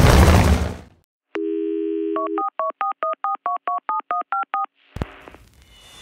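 Music fades out, then a telephone dial tone sounds for about a second, followed by a touch-tone keypad dialing about a dozen digits in quick succession and a click near the end.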